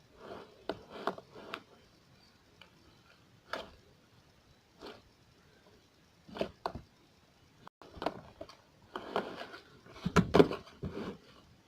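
Slime being squeezed and worked by hand: irregular wet squelches, clicks and pops, in clusters with short pauses, the loudest run of them near the end.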